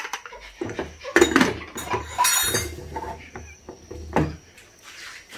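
Aluminium pressure cooker lid being fitted and closed on the pot: a string of metal clinks and knocks, with a short scraping rasp about two seconds in as the lid is seated.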